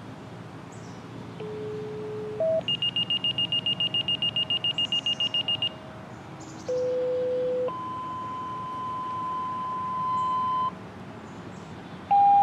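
Radio activation tones for a siren: a low steady tone, then a high beep pulsing about eight times a second for three seconds, then a short lower tone followed by a longer, higher steady tone. Near the end the homemade mini electronic siren starts up with its loud single steady tone.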